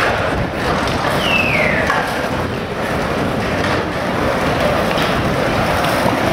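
Steady wind noise on the microphone of a camera riding on a moving fixed-gear bicycle, with a brief falling squeal about a second in.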